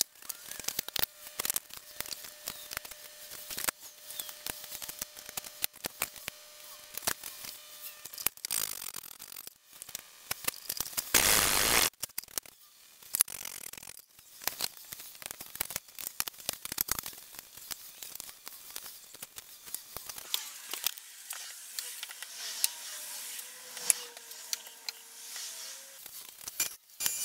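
Small metal bolts, nuts and washers clicking and tapping as they are handled and set down on a wooden workbench, in irregular taps. A short, louder burst of noise comes about eleven seconds in.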